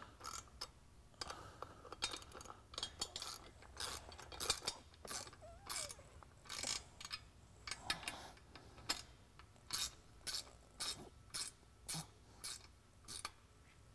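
Ratchet wrench with a 1/2 inch socket clicking in short strokes as nuts on a steel mounting bracket are tightened down. The strokes come irregularly at first, then settle to about two a second.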